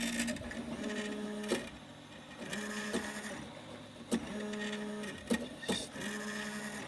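Stepper motors of a homemade 3D printer built from CD-ROM drives whining through short printing moves of about a second each, stopping and starting with sharp clicks between them as the print bed shuttles back and forth under the hot end.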